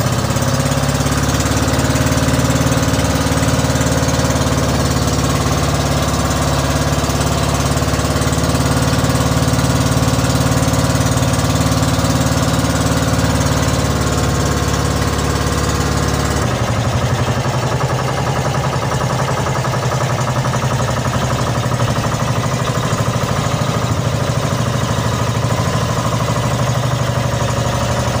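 Outrigger fishing boat's engine running steadily under way. About sixteen seconds in its sound changes abruptly and turns slightly quieter.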